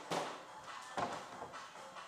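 Two short, sharp knocks about a second apart over faint background music.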